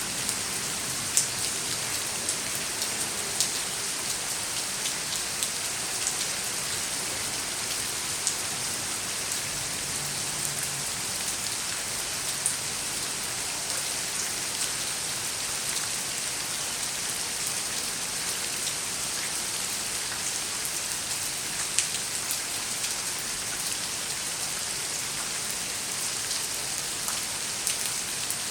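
Steady rain falling on hard surfaces, an even hiss with scattered sharper drop ticks.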